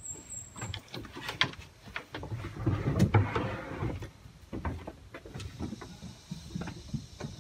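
Scattered footsteps, scuffs and light knocks as people move about, irregular and busiest in the middle.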